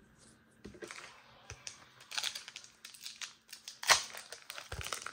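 Foil Pokémon booster-pack wrappers crinkling and rustling as the packs are handled and picked up, in irregular little crackles, with a sharp louder crackle about four seconds in.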